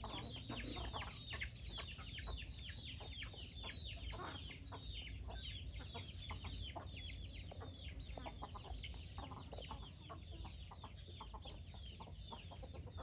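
Free-range chickens calling: a dense stream of quick, high, falling chirps, several a second, over a low steady rumble.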